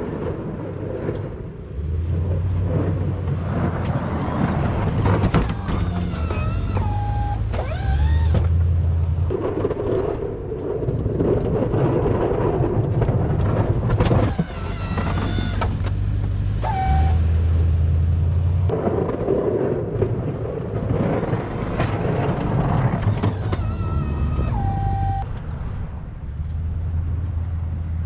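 A snow-plowing vehicle's engine running and revving in repeating cycles. About every eight or nine seconds a whining tone steps down in pitch and then cuts off.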